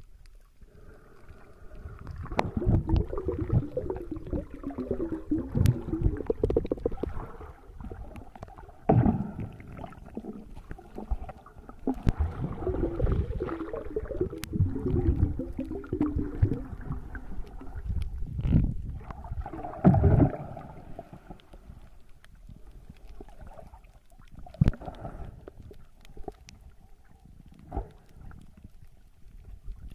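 Muffled underwater sound picked up by a waterproof phone's microphone: irregular gurgling, bubbling surges of water, the loudest a few seconds in and again around twenty seconds in, with scattered sharp clicks between.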